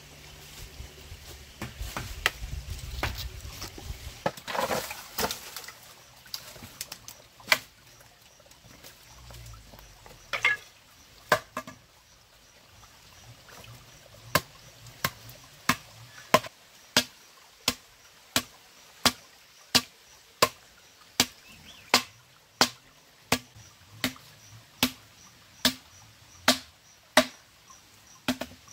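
A blade chopping a pole in steady, evenly spaced strokes, about three strikes every two seconds, starting about halfway through. Before that, rustling with a few scattered knocks.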